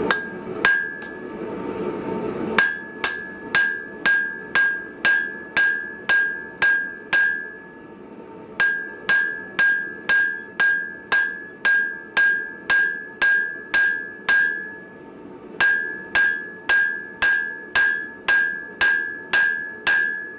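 Hand hammer forging red-hot coil-spring steel on an anvil, each blow giving a sharp strike with a clear high ring from the anvil. The blows come steadily at about two a second in three runs, with short pauses between them.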